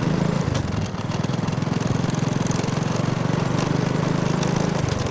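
Motor scooter engine running steadily while the scooter is ridden along a road, heard from on board.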